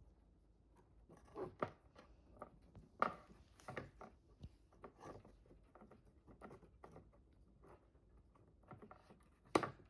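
Kitten eating a mash of kibble and milk formula: irregular small wet smacks and clicks of chewing and lapping, with a sharper click about three seconds in and another near the end.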